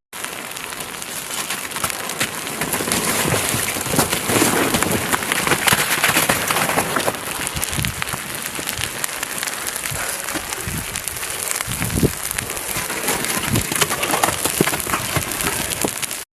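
Lava flow crackling, with a steady hiss and many small sharp crackles throughout.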